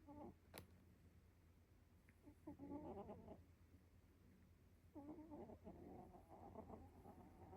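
A sleeping cat snoring faintly: rough breaths in bursts about every two and a half seconds, the last one longer, starting about five seconds in. A single sharp click about half a second in.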